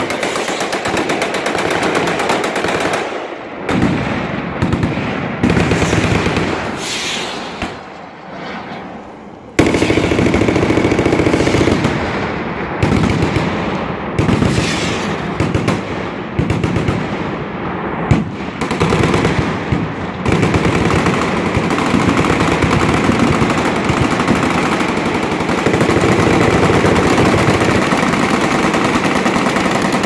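Many machine guns firing at once in continuous automatic bursts, a dense rattle of overlapping gunfire. It thins out and drops quieter about eight seconds in, then comes back suddenly at full force a second and a half later.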